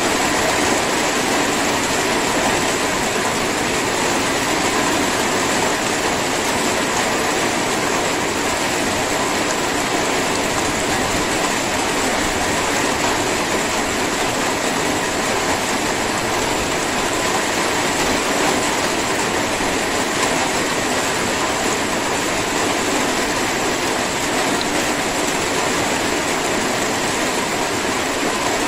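Steady drizzle falling, an even, unbroken hiss of rain.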